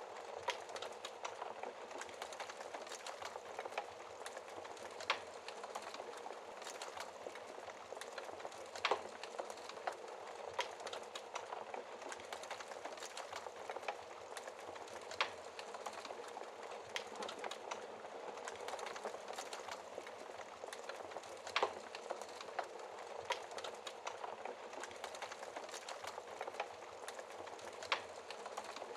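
Wood logs burning in a fireplace: a steady soft hiss with constant small crackles and a louder sharp pop every few seconds.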